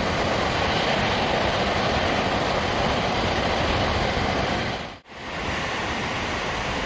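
Water from the Naruko Dam sudare release pouring down the dam face and rushing into the basin below: a loud, steady rush. About five seconds in it cuts out for a moment and comes back a little quieter.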